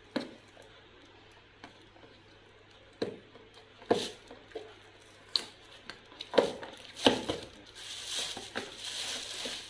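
Plastic bag rustling and crinkling, with a few sharp knocks and clicks as food is packed into a foil-lined cardboard box. From about eight seconds in, the crinkling becomes more continuous as the lid is pressed on over the bag.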